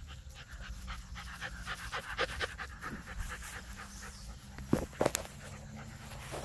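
Rottweiler puppy panting quickly and rhythmically, about four or five breaths a second, as it runs. A couple of sharp knocks about three-quarters of the way through are the loudest sounds.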